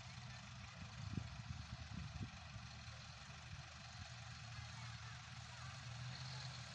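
Faint steady outdoor background: a low hum under an even hiss, with a few brief low buffets in the first couple of seconds.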